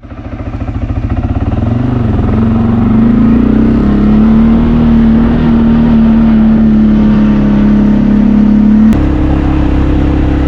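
Vehicle engine pulling away and running under load. Its note rises over the first few seconds and then holds steady, stepping up to a slightly higher steady note about nine seconds in.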